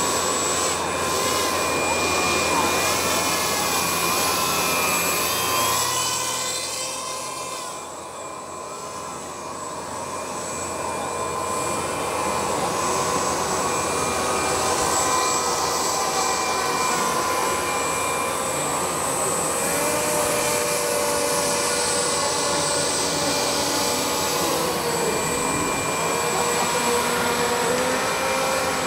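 Motors of radio-controlled model watercraft whining, several steady tones at once, some gliding up and down in pitch as they are throttled. The sound drops for a few seconds about eight seconds in.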